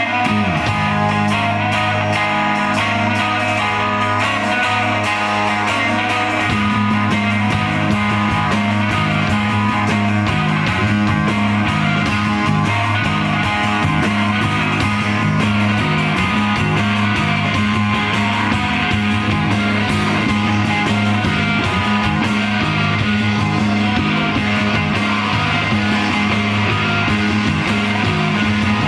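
Instrumental psychedelic rock trio playing live: electric guitar through an amp, electric bass and drum kit with busy cymbals. About six seconds in the bass settles into a pulsing, repeating riff.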